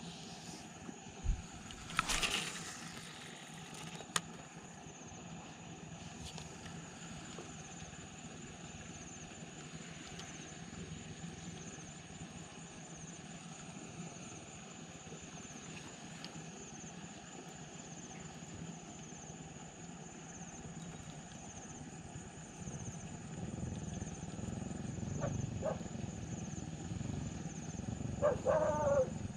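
Spinning rod and reel being handled: a sharp knock and a short rushing burst about two seconds in, and a click a couple of seconds later. A faint steady outdoor background follows, with a soft pulsing high hiss, and a few short squeaky tones come near the end.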